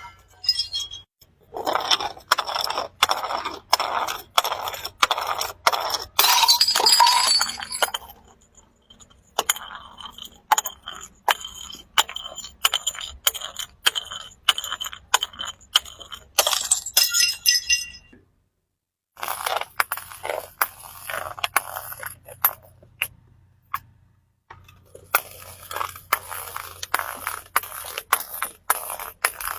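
Glass bottles being crushed: dense runs of crunching, crackling glass with clinks and ringing shards, in several stretches separated by short pauses.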